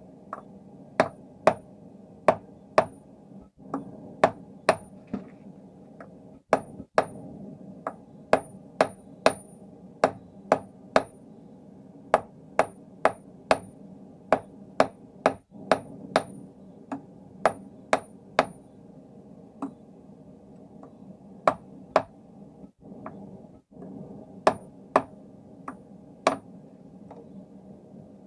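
Hand hammer striking hot steel on a stake anvil in quick runs of about two to three blows a second with short pauses between, each blow followed by a brief high ring. A gas forge runs steadily underneath.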